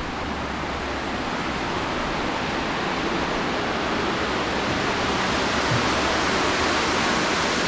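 Creek water cascading over rock shelves into a pool: a steady rush that grows slightly louder.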